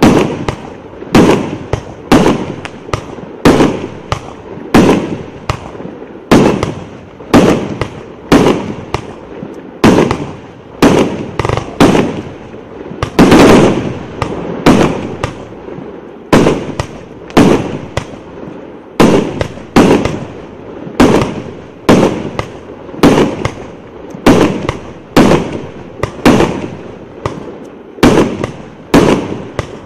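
A 1.2-inch, 100-shot fireworks cake (aerial repeater) firing its shells in a steady rapid succession, a sharp bang about one and a half times a second. There is a louder, denser cluster of shots about halfway through.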